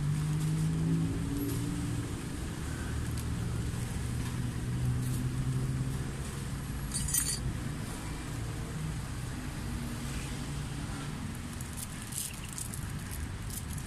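Steady low rumble of passing road traffic, with an engine hum in the first second or so. A short crackle of plastic bags about seven seconds in, and a few light clicks near the end.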